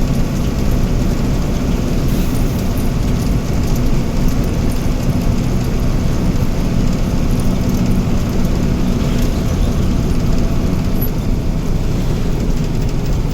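Heavy construction machine's engine running steadily, a continuous low-pitched sound with no change in speed.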